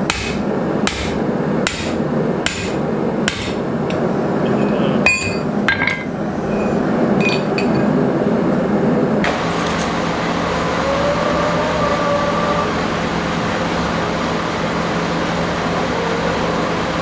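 Hand hammer striking a steel drift through the hot, flattened end of 1-inch rebar on an anvil, about six ringing blows roughly two a second, followed by a few metallic clinks of tools being set down. About nine seconds in, the sound changes to a steady low hum.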